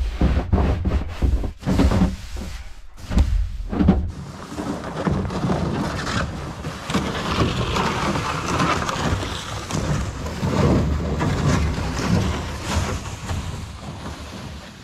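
A rag scrubbing the inside of a hollow plastic IBC tote in quick, uneven strokes, then a plastic sled carrying the tote dragged over packed snow and gravel, a steady scraping rumble that eases slightly near the end.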